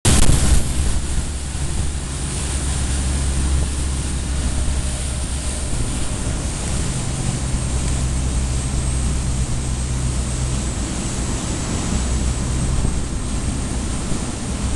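Interceptor 48 pilot boat under way at speed: a steady low drone of its diesel engines under the rush of wake water and wind on the microphone, with a louder gust at the very start.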